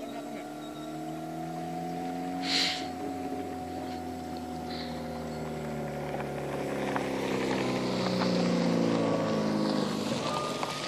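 Radio-controlled model boat's motors running as it cruises across open water, a steady whine whose pitch drifts slightly lower in the second half. A brief hiss comes about two and a half seconds in.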